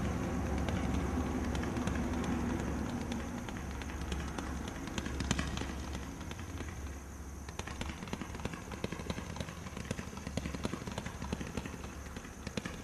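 98-shot combination roman candle barrage firing stars in quick succession: a rapid, irregular series of sharp pops over a steady low rumble.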